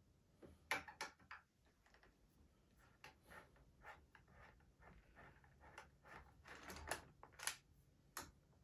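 Faint, scattered clicks and ticks of a T-handle 3/16 hex wrench fitting into and turning out the action screws of a Ruger American Ranch's synthetic stock.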